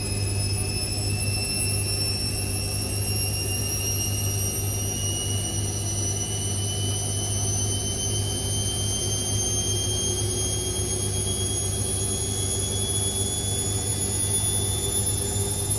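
Indesit IWC6165 washing machine motor whining, its pitch climbing slowly and steadily as the drum speeds up, over a low steady hum.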